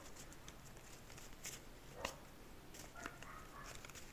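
Faint handling of stiff board-game cards: a few soft clicks and slides as a fanned hand of cards is gathered into a stack, the sharpest click about two seconds in.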